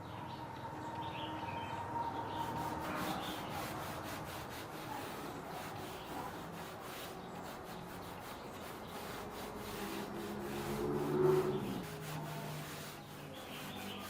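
Steady rubbing against a surface, with a brief louder pitched sound about eleven seconds in.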